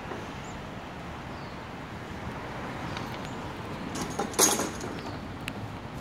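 Steady road and engine noise of a moving car, heard from inside the car, with a brief loud clatter about four and a half seconds in.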